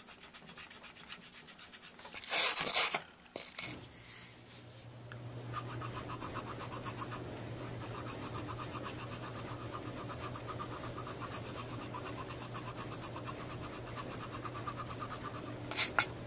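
Steel hand file scraping in quick, even strokes while shaping a hardened acrylic filling on a mouthpiece bite plate and being cleared on a wire file card. There is a louder, harsher scrape about two seconds in and another near the end, and a faint low hum runs under the strokes from about four seconds in.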